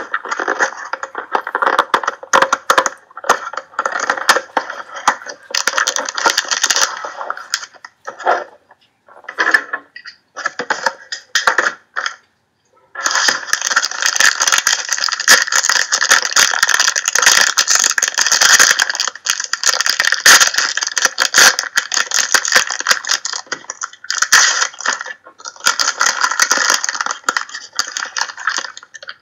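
Foil wrapper of a Panini Playbook hockey card pack crinkling and tearing as hands open it and handle the cards: a dense crackle of small clicks, broken up by short pauses about a third of the way through, then continuous.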